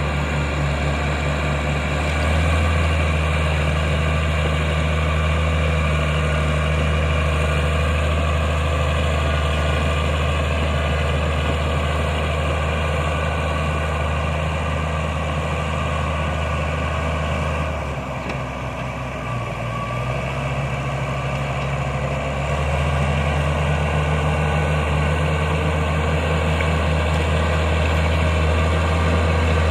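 Caterpillar D6G bulldozer's diesel engine running steadily with a deep, even drone. About two-thirds of the way through, the engine note drops for a few seconds, then comes back up to full.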